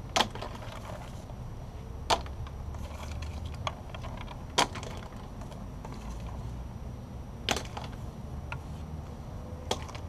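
Peanuts tossed onto a painted wooden deck, landing as separate sharp knocks on the boards, about six over several seconds, with a steady low rumble underneath.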